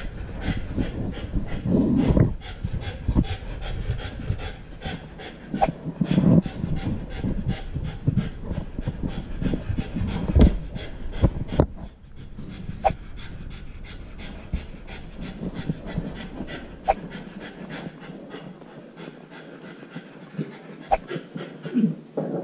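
Husky puppy panting right at a GoPro strapped to her harness, with fur and harness rubbing and clicking against the camera. One sharp knock about ten seconds in.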